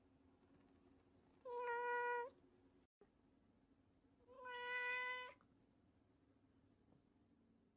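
A cat meowing twice: two long meows held at an even pitch, each just under a second, about three seconds apart.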